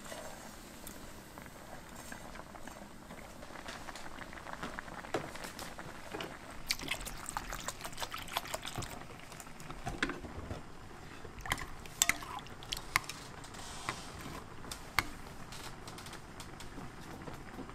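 Noodles simmering in a pan at first, then dongchimi (radish water kimchi) broth being poured and ladled into a ceramic bowl, with splashing, trickling and several sharp clinks of a metal ladle against the bowl.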